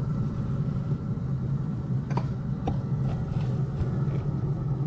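Steady low mechanical hum, like a motor or fan running, with two light clicks a little after two seconds in.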